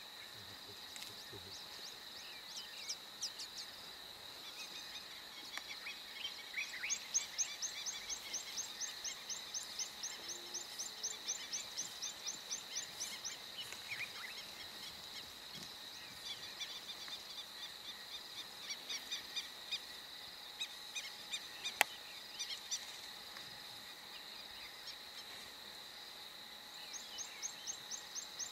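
African bush ambience: a steady high insect drone, with a rapid run of high repeated chirps about seven seconds in lasting several seconds, returning near the end, and scattered bird calls. A single sharp click about twenty-two seconds in is the loudest sound.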